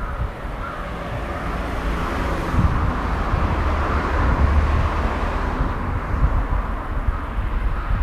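A road vehicle passing, its tyre and engine noise swelling about two seconds in and easing off again, over a steady low rumble of wind on the microphone.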